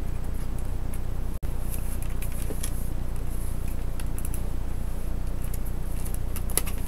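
A Samsung GT-8000 laptop being tipped and shaken to free its loosened keyboard screws: small scattered clicks and rattles of screws and plastic case. These are heard over a steady low electrical hum that cuts out for an instant about a second and a half in.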